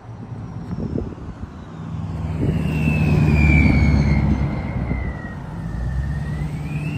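A motor vehicle passing close on the street, its engine loudest about three and a half seconds in, with another coming up near the end. Above it a high whine slowly falls and then rises again.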